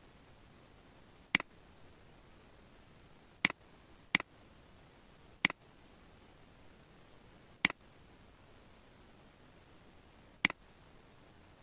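Computer mouse button clicking: six sharp single clicks at irregular intervals, over a faint steady hiss.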